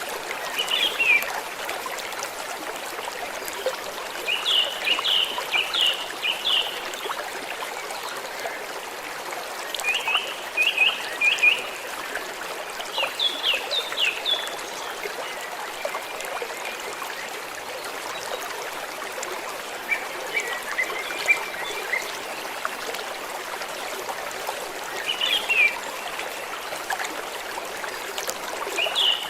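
Small stream trickling and flowing steadily. A bird calls over it in short runs of quick high chirps, repeated every few seconds.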